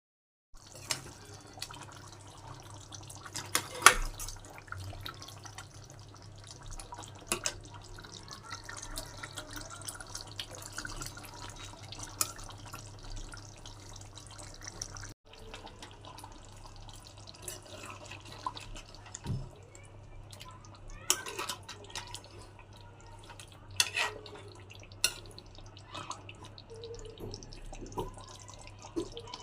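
Water and liquid sounds with occasional sharp knocks and clinks over a low steady hum.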